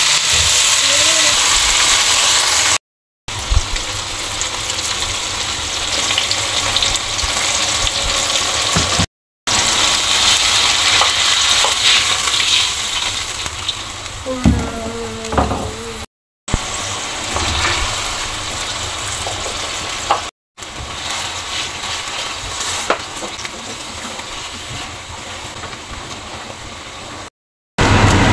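Food sizzling and bubbling in oil and sauce in a wok, stirred with a spatula at first. The hiss comes in several stretches split by short gaps of silence.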